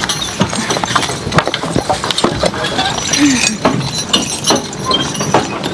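Draft horses' hooves clopping along a rough, wet woods trail, mixed with irregular knocks and rattles from the horse-drawn rig they pull.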